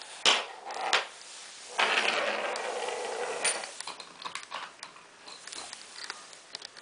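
Two sharp clicks, then about two seconds of loud rustling scrape, fading into scattered light ticks and taps: handling noise among bed parts and packaging.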